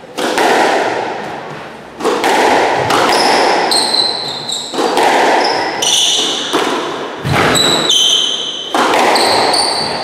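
Squash rally: the ball struck hard by rackets and smacking the walls every second or two, each hit echoing around the court, with sneakers squeaking sharply on the wooden floor between shots.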